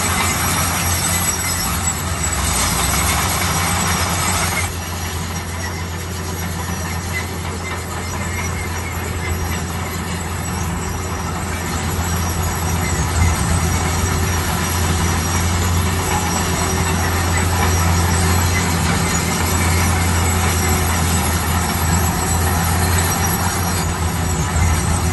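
Bulldozer running steadily: a low, heavy diesel-engine hum with dense mechanical working noise over it. The higher part of the noise drops away sharply about five seconds in.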